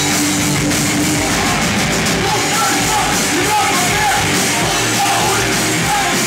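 Hardcore band playing loud: distorted electric guitars, bass and drums, with shouted vocals.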